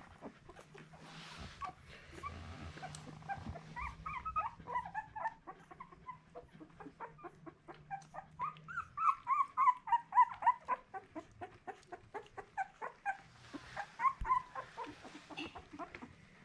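Two-week-old Miniature Australian Cattle Dog puppies squeaking and whimpering: a rapid run of short, high cries that starts a few seconds in and is loudest about halfway through.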